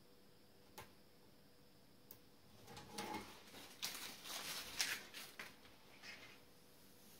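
Backing tape being peeled off a self-adhesive splinter guard strip on an aluminium saw guide rail, with the backing and plastic strip handled. A couple of light clicks, then a few seconds of crackly rustling and snapping from about two and a half seconds in, loudest near five seconds.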